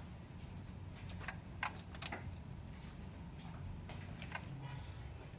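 Toyota Vitz 1KR three-cylinder engine idling as a steady low hum, with a few light, irregular clicks over it.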